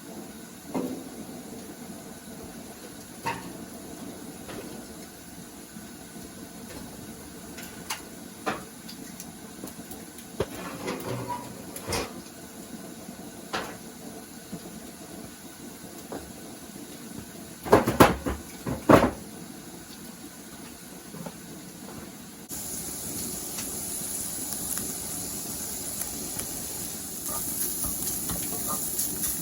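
Cookware being handled, scattered clicks and knocks with a few louder knocks a little past halfway, then a steady sizzle starts about three-quarters through as food fries in a hot pan.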